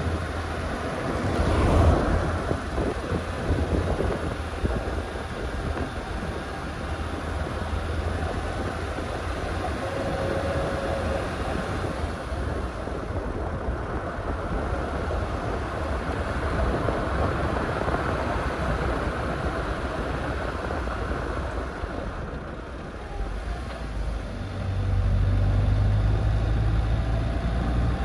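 A car driving along a paved road: steady tyre, road and engine noise with wind on the microphone. An oncoming car passes about two seconds in, and the low engine rumble grows louder near the end.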